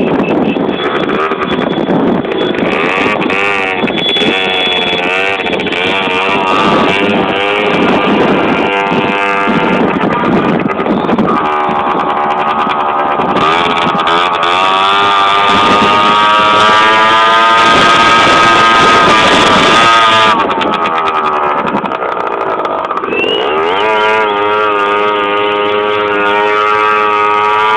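Motor vehicles, engine tones rising and falling in pitch as they pass, with long held pitched tones over them.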